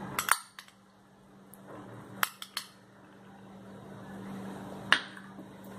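Metal spoon clinking against a glass bowl while scooping chopped onion into a glass dish: two sharp clicks at the start, three more about two seconds in and one near the end. A steady low hum runs underneath.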